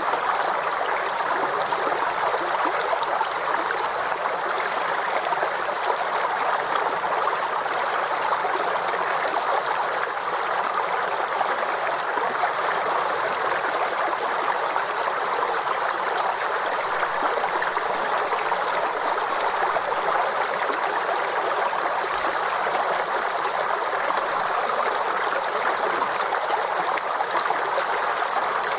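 A small stream babbling and trickling over rocks, a steady, even rush of water.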